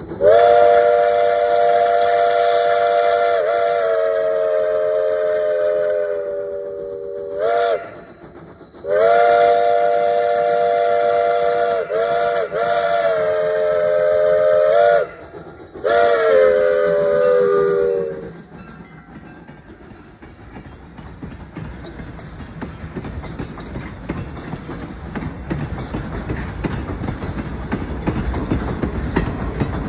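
Locomotive chime whistle blowing a chord of several tones in four blasts: a long one, a short one, a long one, then a shorter last one, the pitch sliding at each start and stop. After the last blast a low rumble builds as the train gets under way.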